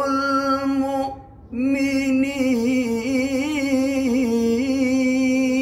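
A man reciting the Quran in melodic tilawah style, drawing out the words 'wa ṣāliḥu l-mu'minīn'. He holds one long note, breaks off briefly about a second in, then sings a long ornamented phrase with wavering pitch.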